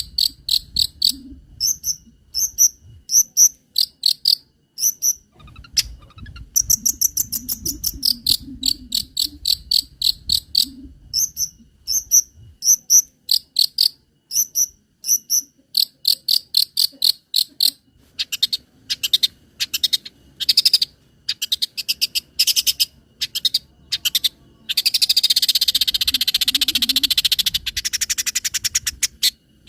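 Long-tailed shrike (cendet) singing: rapid runs of short, high-pitched chips and trills, mixing in mimicked calls, with a dense harsh, buzzy rattle about 25 seconds in.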